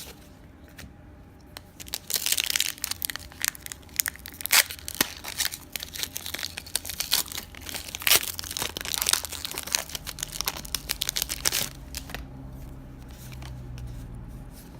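Foil wrapper of a Pokémon Evolutions booster pack crinkling and tearing as it is opened by hand, a long stretch of sharp crackles from about two seconds in until about twelve seconds in.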